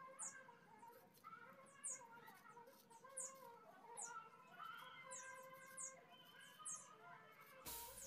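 Near silence with faint background birds: short high chirps about once a second over softer warbling calls. A hiss rises at the very end.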